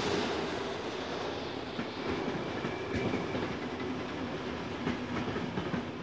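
Passenger train hauled by an Austrian Federal Railways electric locomotive pulling into a station, running steadily with irregular clicks of steel wheels over rail joints and points.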